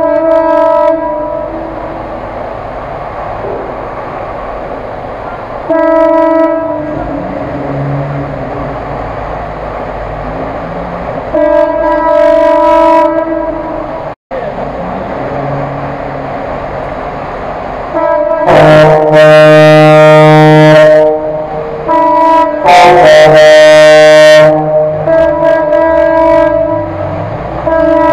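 Vehicle horns sounding inside a concrete drainage tunnel: several long held blasts, the two loudest near the end lasting a couple of seconds each, with a steady rumble of engines and water between them.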